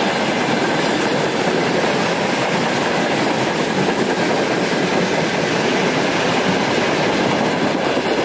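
Broad-gauge freight wagons rolling past: a steady, loud rumble and rattle of wheels on rails, with clickety-clack over the rail joints.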